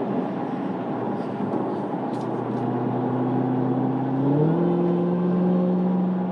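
Supercharged 6.2-litre HEMI V8 of a Dodge Challenger Hellcat Redeye under way, heard from inside the cabin, with the supercharger whine and tyre hiss on a wet road. About four seconds in the revs step up suddenly and hold at the higher pitch, a little louder.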